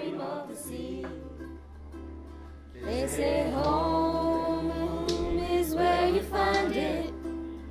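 A song sung by a group of voices, growing louder about three seconds in on a long held note.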